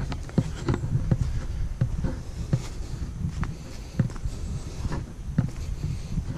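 Footsteps crunching through dry fallen leaves in an uneven stride, about one or two steps a second, over a steady low rumble.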